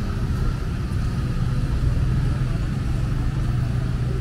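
A motor vehicle's engine running steadily close by, a low hum that grows stronger about a second in, over general street noise.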